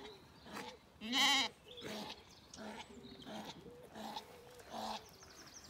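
Zwartbles sheep bleating: one loud, wavering bleat about a second in, followed by several shorter, fainter bleats.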